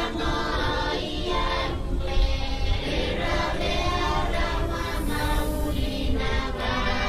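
Music with voices singing together, choir-like.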